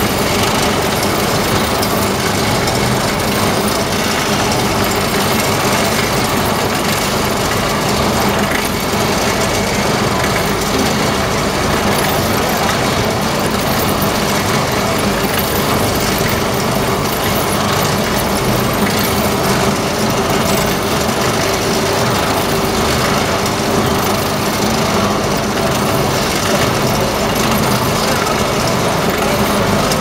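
Continuous biomass carbonization furnace for coconut shell running: a loud, steady machine drone with a low hum, unchanging and without knocks or pauses.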